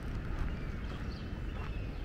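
Small birds chirping and whistling in short, scattered calls over a steady low rumble.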